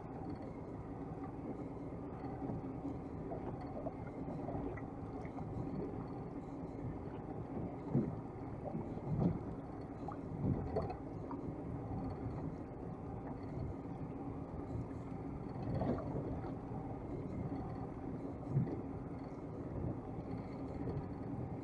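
Small fishing boat's engine running steadily, with a few scattered thumps about a third and three quarters of the way in.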